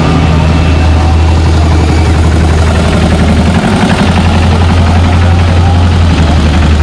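Caterpillar Challenger rubber-tracked tractor's diesel engine running under load as it pulls a weight-transfer sled: a loud, steady low drone with a brief dip about halfway through.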